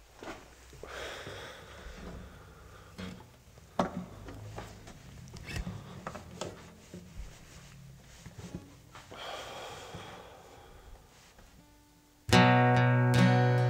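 Faint rustling and a few light knocks, then near the end an acoustic guitar comes in suddenly and loudly with a strummed chord and keeps strumming.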